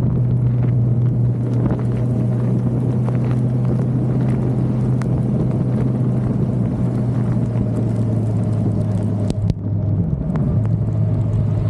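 Suzuki motorcycle engine running at a steady road speed, with a constant low engine note under road and wind noise. The engine note briefly drops out and changes about nine and a half seconds in.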